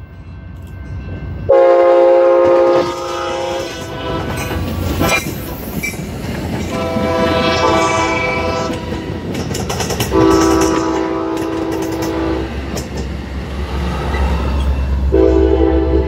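Multi-chime train horn sounding four long blasts of about two seconds each, the first the loudest and the last starting near the end, over the rumble and clickety-clack of a passing train's wheels on the rails.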